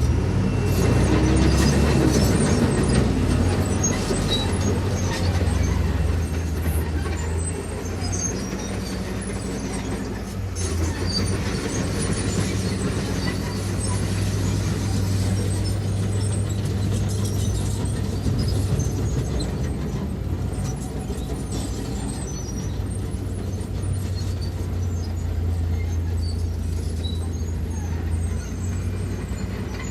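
Diesel engine of heavy earthmoving machinery running under load, a steady low drone whose pitch and loudness shift as it works, loudest in the first six seconds.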